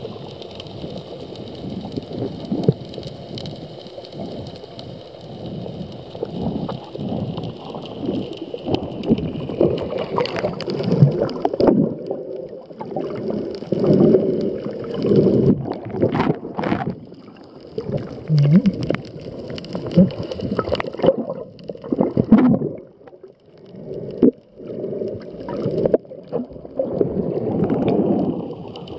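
Muffled gurgling and sloshing of water heard by a camera held underwater, swelling and fading unevenly with the swimmer's movement, with a few brief knocks.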